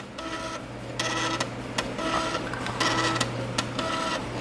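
NEC FD1231H 3.5-inch floppy disk drive reading a disk: its head stepper makes short pitched buzzing bursts roughly once a second, with a sharp click between them, over a steady low hum.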